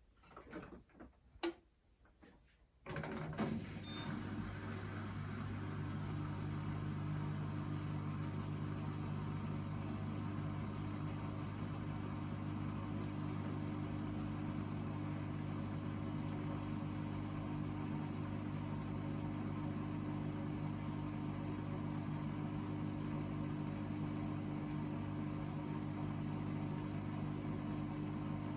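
Hoover VHD 9163 ZI washing machine starting its spin-only programme: a few clicks, then about three seconds in the drum motor starts and runs with a steady hum.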